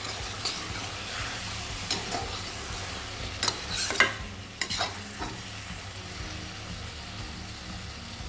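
Zucchini pieces sizzling in a wok while a spatula stirs and scrapes through them, mixing in dry spices. The scraping knocks come thickest about three and a half to five seconds in, then the pan settles to a steady sizzle.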